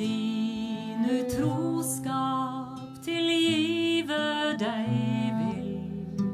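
Instrumental interlude of a Scandinavian folk song: acoustic guitar under a melody line whose notes slide and waver in pitch.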